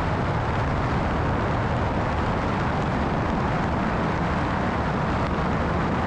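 Steady rush of wind and engine noise from a light single-engine plane in flight, picked up by a camera mounted outside on the airframe.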